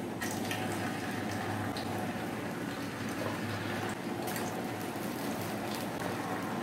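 Raw banana slices sizzling in hot cooking oil in a frying pan as they are dropped in: a steady frying sizzle with small crackles.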